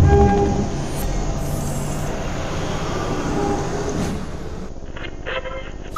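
Sound-effect intro of a hip-hop track: a loud low boom right at the start, then a steady rumbling noise with scattered short tones, before the beat and the rapping come in.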